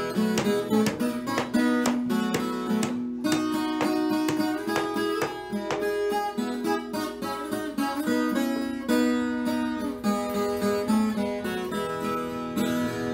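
Background music: acoustic guitar, picked and strummed.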